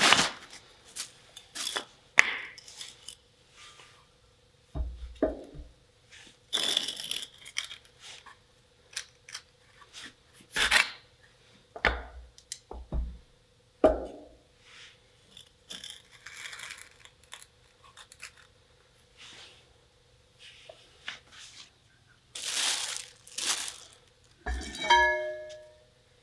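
Scattered knocks, clinks and scraping of heavy steel truck-suspension parts and wooden blocks being handled and fitted by hand, with rustling between them and short pauses.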